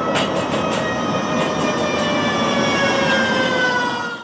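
Electric streetcar passing on its rails: wheel and rail noise under a whine of several high tones that slide slowly down in pitch as it goes by, with a few clicks in the first half second.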